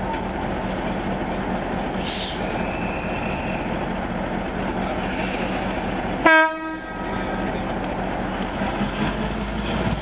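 GR12 diesel locomotive (EMD 567 two-stroke V12) running steadily at standstill. About six seconds in the horn gives one short, loud toot, and a brief hiss comes about two seconds in.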